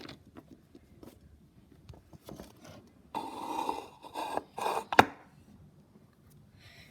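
Small plastic toy figures being handled and moved over a hard surface: light clicks and taps, two short scraping rubs a little past the middle, and one sharp tap about five seconds in.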